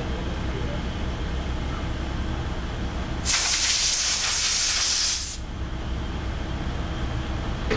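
A blast of compressed air hissing loudly for about two seconds, over a steady low machine hum.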